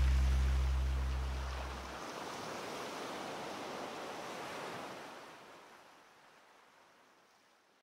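The closing music's low held note dies away in the first two seconds. A soft, even rushing noise like surf follows and fades out to silence.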